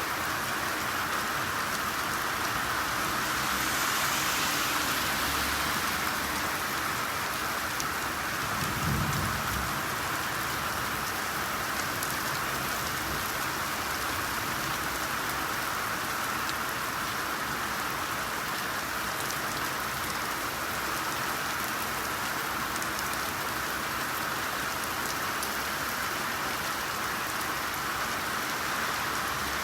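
Steady rainfall: an even hiss with scattered individual drops tapping, and a brief low rumble about nine seconds in.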